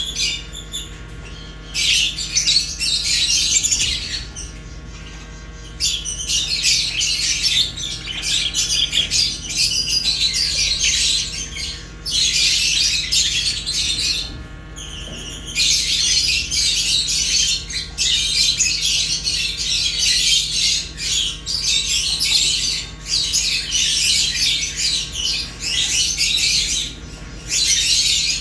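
Pet budgerigars and lovebirds chirping and squawking together in dense, overlapping chatter, with short lulls about four and fourteen seconds in.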